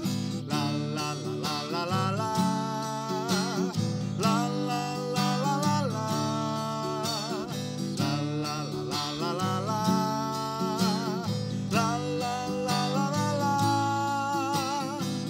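Acoustic guitar strummed steadily under a man's singing voice, with vibrato on the held notes.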